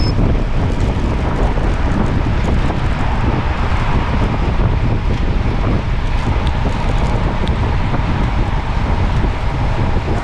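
Wind buffeting the microphone while moving: a steady, heavy low rumble of rushing air, with a faint steady hum underneath.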